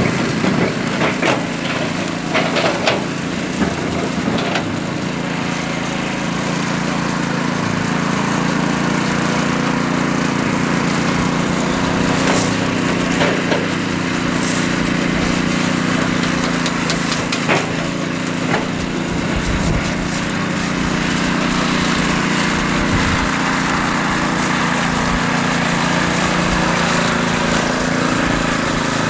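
Small engine of a concrete power trowel running steadily, with a few sharp knocks and clatters in the first few seconds and a couple more later on.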